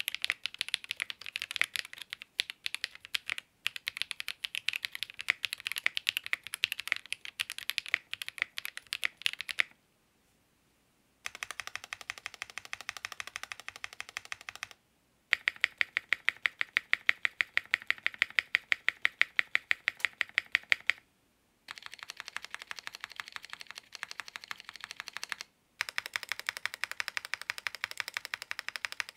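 Fast, steady typing on a ZoomTKL mechanical keyboard (FR4 plate, GMK keycaps) fitted with Ceptify linear switches, for a stock-versus-lubed sound test. It comes as a run of separate typing clips with short breaks between them, and a brief near-silent pause about ten seconds in.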